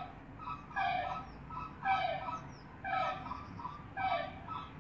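Flamingo calls: a nasal, goose-like honk repeated about once a second, each honk followed by a few shorter notes.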